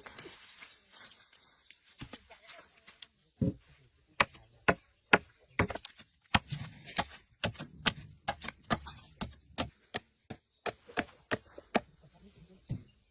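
An irregular series of sharp knocks and clicks, a few a second at times, from hard objects striking, starting about two seconds in and stopping near the end.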